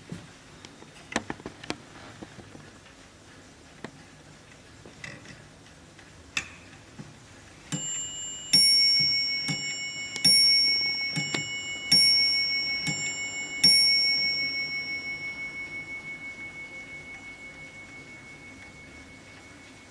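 A Warmink mantel clock's strike on two bells: about eight blows alternating high and low, ding-dong. The last one rings on and fades away over several seconds. A few scattered clicks from the clock come before the strike begins.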